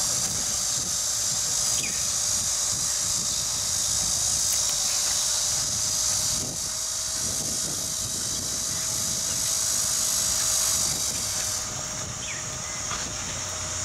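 Steady high-pitched outdoor hiss, with a faint steady hum and a low rumble beneath; the hiss thins about three quarters of the way through.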